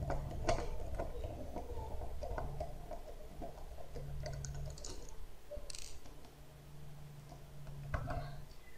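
Small clicks and ticks of a screwdriver backing out the screws that hold a Dell Latitude D630 laptop's LCD panel, with light handling of the plastic and metal display parts.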